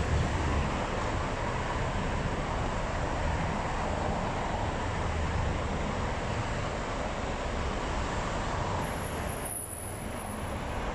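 Street traffic noise: road vehicles going by, a steady wash of sound that dips briefly near the end.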